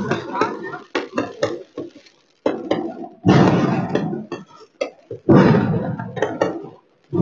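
Fireworks going off close by: a quick run of sharp bangs and crackles, then two much louder blasts about two seconds apart, each trailing off in a rumble.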